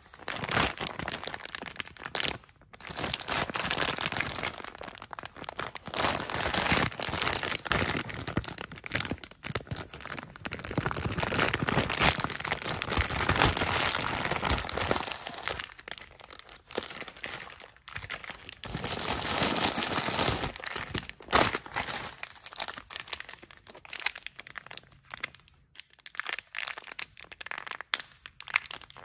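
Crinkly plastic packaging being handled: a soft-plastic candy bag rustling and crackling in the hands in long stretches with short pauses, and near the end the sharper crackle of a small wrapper being picked open.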